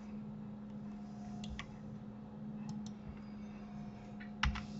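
Scattered clicks of a computer mouse and keyboard: a few soft single and paired clicks, then a louder double click near the end, over a steady low hum.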